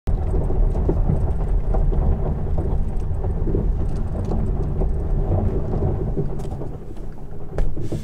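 Tyres of an electric car rolling slowly over a gravel lane, a steady low rumble with small crunches heard inside the cabin, with a louder bump near the end.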